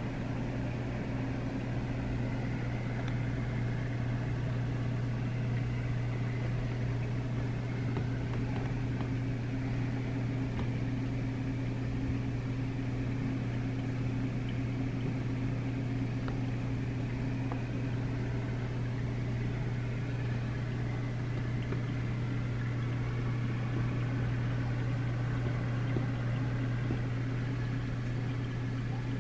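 Steady low hum of a reef aquarium's water pumps and powerheads, with a faint even hiss over it.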